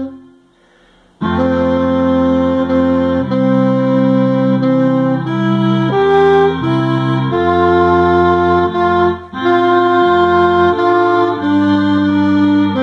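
Alto saxophone playing the alto voice of a slow hymn in long, sustained notes. The line pauses for about a second near the start and breaks briefly about nine seconds in.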